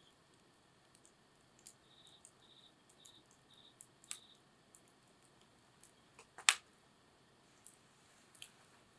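Wood crackling in a campfire: scattered sharp pops over a faint background, the loudest about six and a half seconds in.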